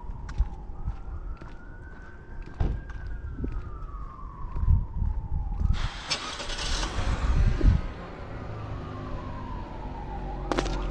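An emergency-vehicle siren wailing, its pitch rising and falling slowly over several seconds, over street traffic. A louder rush of passing-car noise swells about halfway through.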